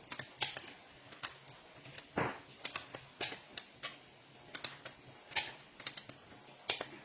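Irregular sharp metallic clicks and clinks of a wrench and hand tools working bolts during the torque-and-angle tightening of a Toyota 2KD diesel engine's bolts, some clicks with a short ring.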